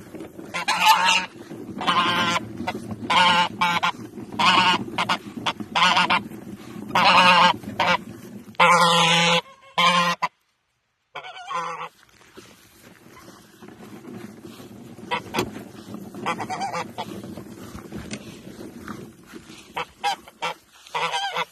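Domestic goose honking over and over: about eight loud honks in the first ten seconds, then after a short gap only a few quieter calls.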